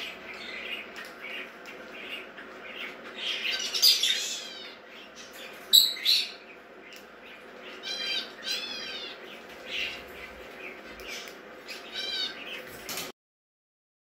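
Pet budgerigar chattering: a run of quick chirps and warbled notes, with two sharp, loud squawks close together about six seconds in. The sound cuts off suddenly near the end.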